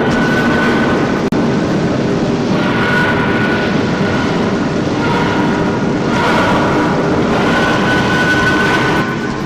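A loud, steady rushing roar with a high whistling tone that comes and goes, and a brief dropout about a second in.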